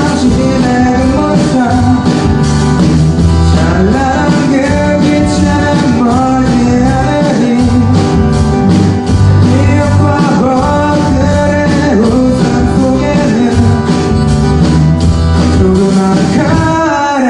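Live band playing a song: guitars, bass and drums, loud and steady.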